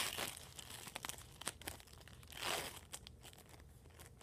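Individual wrapper of a U by Kotex Barely There panty liner being torn open and unfolded by hand: quiet crinkling and small crackles, with a longer tearing rip about two and a half seconds in. The rip is very clean and not very loud.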